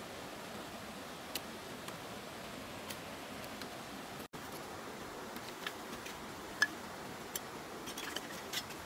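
Steady rush of a shallow stream with scattered light taps and clicks of a machete working bamboo strips, the sharpest click about two-thirds of the way through. The sound drops out for an instant a little before halfway.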